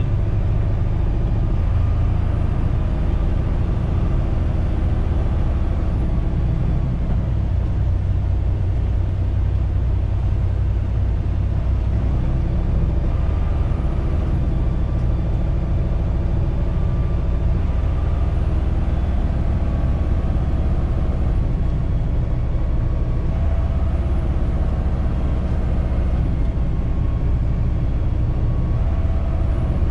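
Tractor-trailer's diesel engine running steadily with tyre and road noise as the truck drives on.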